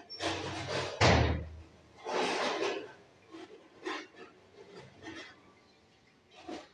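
A few knocks and rustling noises, the loudest a thump about a second in, followed by fainter ticks and taps.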